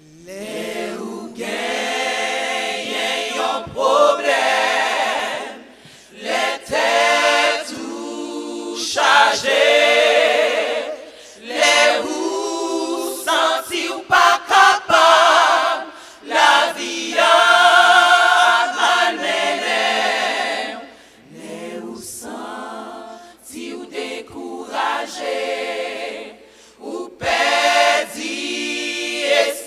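Women's choir singing a cappella in several voices, in phrases of a few seconds with short breaks between them.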